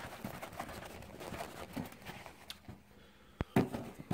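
Faint handling noise as the sneakers are turned over and shown: soft, irregular rustling with a few small clicks and one sharper tap near the end.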